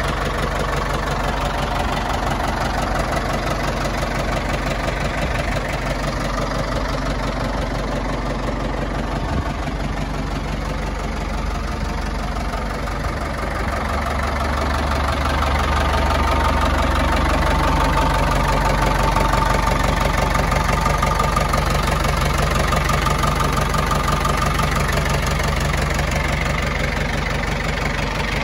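Ford 6610 II tractor's four-cylinder diesel engine idling steadily, a little louder from about halfway through.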